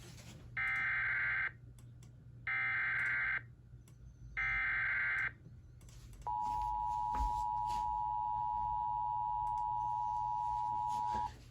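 Emergency Alert System SAME header, three short bursts of warbling data tones about a second apart, followed by the two-tone attention signal held steady for about five seconds. It announces a relayed severe thunderstorm warning.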